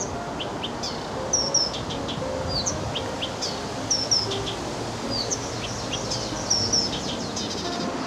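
Reed warbler (Acrocephalus) singing: a continuous run of short, high chirps and slurred notes, with a quick doubled note that recurs three times.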